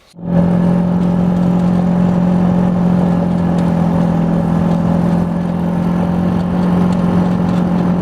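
An engine running steadily at a constant speed, with a strong, even hum.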